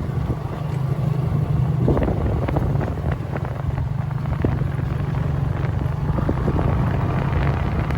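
Motorcycle engine running at a steady pitch while riding, with wind on the microphone.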